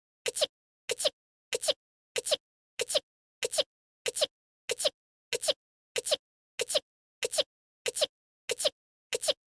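A voice-acted anime character's short sneeze, the same clip looped over and over about every two-thirds of a second, with dead silence between sneezes.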